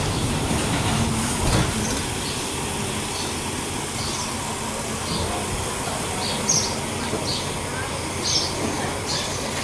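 Steady rumble and hiss of a standing diesel-hauled passenger train, heard from inside the carriage, with a few short high bird chirps.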